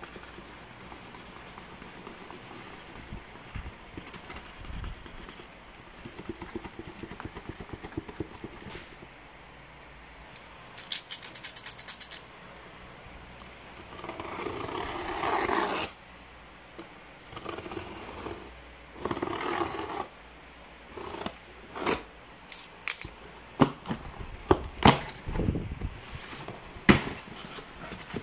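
A felt-tip marker scribbling back and forth over a paper shipping label on a cardboard box, in runs of quick strokes. Then the box is opened: two longer tearing, rustling stretches and a string of sharp knocks from cardboard flaps and packaging being handled.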